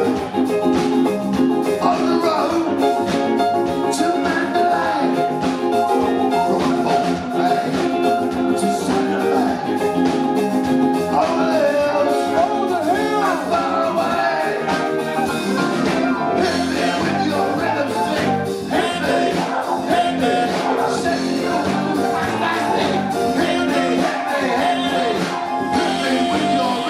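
Live band playing through a PA: drum kit, bass guitar, electric guitar and keyboards, with a male singer singing into a hand microphone. The music is loud and continuous, with a steady drum beat.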